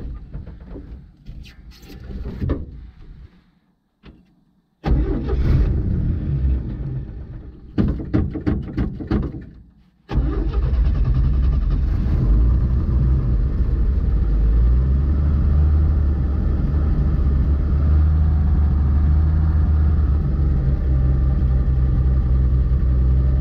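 1952 GMC truck's six-cylinder engine cranked over by the starter in two tries, catching about ten seconds in and then running at a steady idle.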